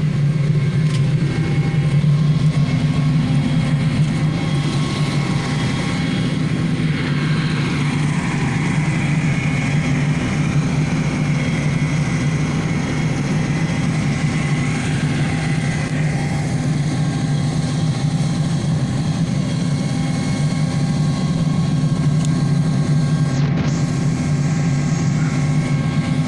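Fire truck's engine running steadily: a low, even drone.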